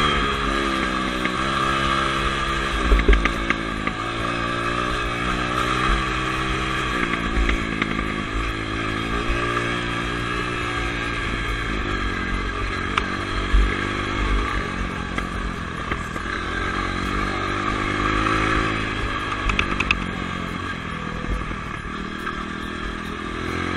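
Dirt bike engine running as the bike rides along a rutted dirt track, its pitch stepping up and down several times with throttle and gear changes. Occasional sharp knocks come from the bike jolting over ruts.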